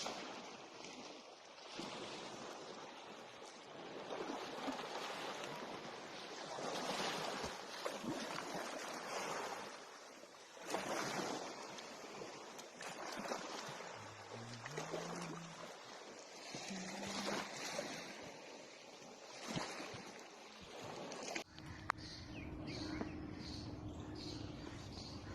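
Rushing water, a noisy wash that swells and fades every few seconds like waves. About 21 seconds in it cuts off abruptly to a steady low hum with a quick, regular high ticking.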